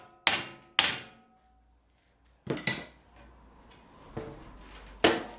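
Hammer blows on a steel sheet over an anvil, folding its edge over: two sharp strikes in the first second, each ringing briefly. After a pause come a few lighter metallic knocks, and one loud sharp clank near the end.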